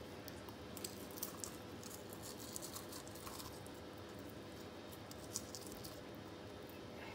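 Hands handling a whole raw fish on a wooden cutting board, pushing pieces of lemongrass into its belly: soft, scattered small clicks, scratches and wet squishes, over a faint steady hum.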